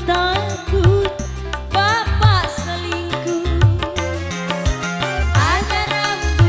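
Live dangdut band playing: a lead melody with sliding pitch bends over a pulsing drum and bass beat.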